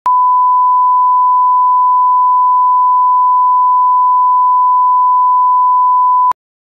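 Bars-and-tone test signal: a loud, steady, pure reference tone played with the colour-bar test pattern, one unwavering pitch that cuts off abruptly shortly before the end.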